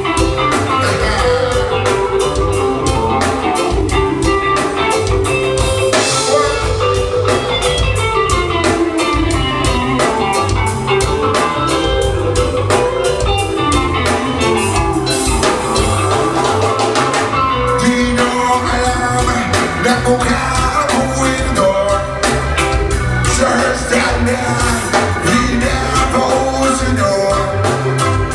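Band music with singing, guitar and drum kit over a steady beat.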